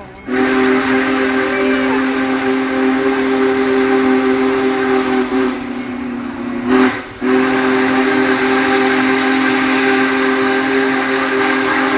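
Union Pacific Big Boy No. 4014 steam locomotive's whistle blowing loud, sustained blasts: a long blast, a short one about seven seconds in, then another long blast that holds to the end.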